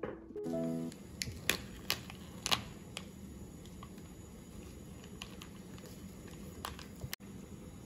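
Plastic sauce sachet being handled and squeezed out: scattered light crinkles and clicks, several in the first three seconds and a few more later, over a steady room tone.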